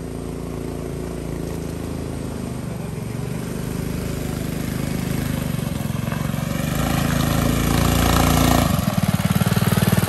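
Small single-cylinder engine of an off-road go-kart buggy running and growing louder as the buggy approaches. About nine seconds in, as it comes close, its fast, even chugging beat comes through plainly.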